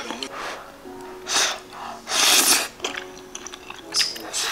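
Background music, with a person eating noodles: three short noisy slurps, the loudest about two seconds in.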